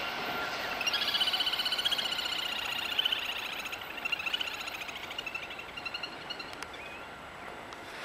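Little grebe giving its rapid, high-pitched whinnying trill, which starts about a second in and fades away over about five seconds.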